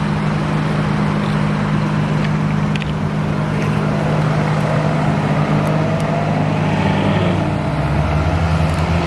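Sports car engines with traffic noise. A steady low engine hum runs throughout, and about four seconds in a car accelerates, its engine note rising in pitch.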